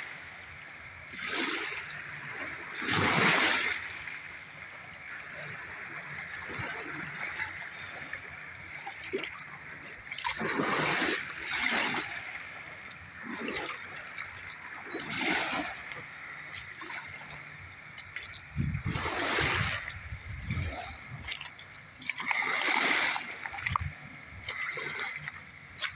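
Small waves washing onto a pebble beach: surges of rushing water every few seconds over a steady hiss, with a brief low rumble about two-thirds of the way through.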